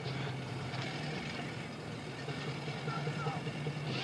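Motorboat engine idling with a steady low hum while the boat sits frozen into its slip, its propeller stirring the water under the ice.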